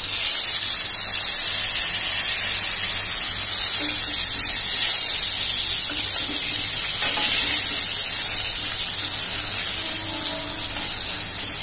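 Slices of elephant foot yam shallow-frying in hot oil in a steel kadai: a loud, steady sizzle that eases off slightly near the end.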